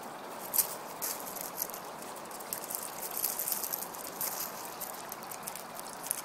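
Two dogs scuffling on slate chippings: their paws scrabble and skid, making the loose stones clatter and crunch in short crisp rattles, one sharp clatter about half a second in and a busier stretch around the middle. A steady hiss lies underneath.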